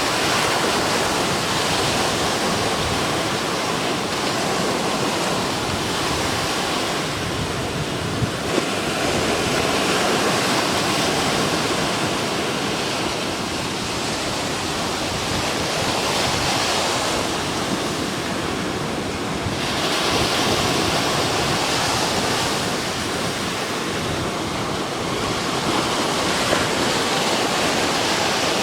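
Ocean surf breaking continuously on the beach, the roar of the wash swelling and easing every few seconds as sets of waves come in, from the swell left behind by a passing typhoon.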